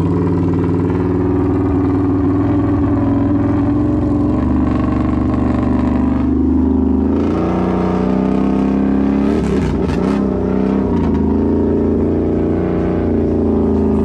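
Can-Am Renegade XMR 1000 ATV's V-twin engine running through an aftermarket megaphone exhaust, held on throttle. Its pitch climbs about halfway through, then wavers and dips briefly near ten seconds in before steadying.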